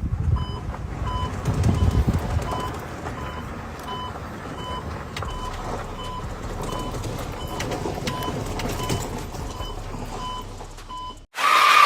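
Backup alarm of a construction vehicle beeping at about one and a half beeps a second over a low engine rumble. Near the end it cuts off, and a loud burst of noise follows.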